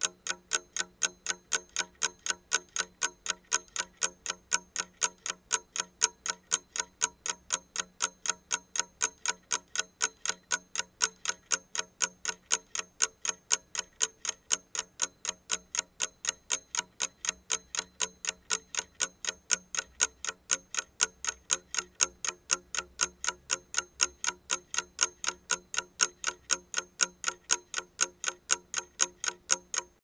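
Clock ticking steadily, with quick, evenly spaced ticks at about three to four a second.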